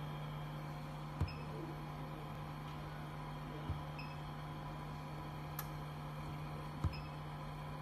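Continuous inkjet printer running with a steady low hum, with a few short soft clicks about every two and a half to three seconds.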